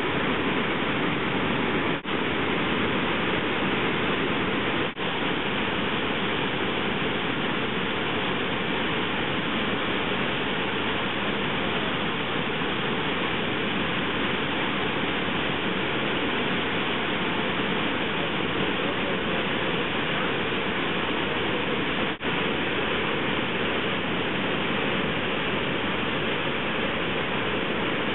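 Brooks Falls waterfall and the white water below it rushing steadily, with three momentary breaks in the sound.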